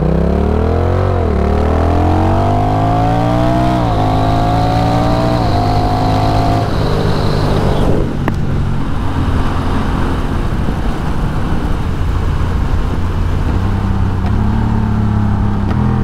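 A 2021 Honda Rebel 1100 DCT's parallel-twin engine running through a Coffman's Shorty slip-on exhaust, accelerating hard. The pitch climbs and drops back at each automatic upshift, three times in the first six seconds. After about eight seconds it eases off into a steady highway cruise.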